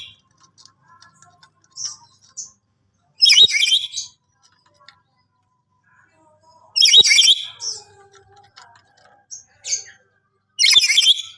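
Black-capped lory giving loud, harsh screeching calls: three bursts about three and a half seconds apart, each under a second long, with faint short chirps in between.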